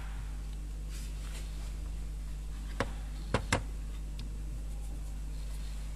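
Light knocks of a white plastic freezer handle being set down on a wooden bench: one click, then two quick clicks about half a second later, over a steady low hum.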